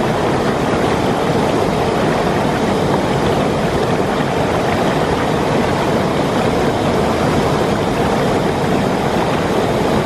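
Fast, muddy stream in spate pouring over a low weir and rushing past: a loud, steady, unbroken rush of water.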